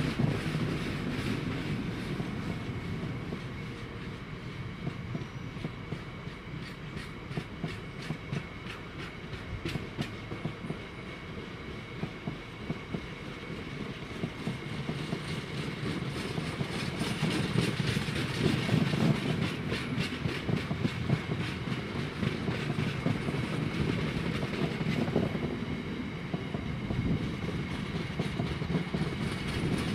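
A long freight train of bogie tank wagons rolling past, a continuous low rumble of wheels on rails with a steady run of sharp wheel clicks. The rumble swells and eases as the wagons go by, loudest past the middle and again at the end.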